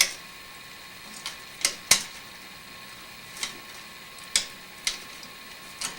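Screwdriver tightening a terminal screw on a dimmer switch: a scattering of sharp clicks at irregular intervals, about eight in all.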